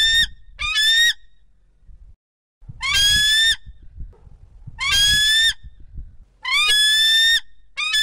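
Bald eagle calling: a series of shrill, high whistled cries, each sweeping up quickly and then held briefly, coming every one to two seconds, some in quick pairs.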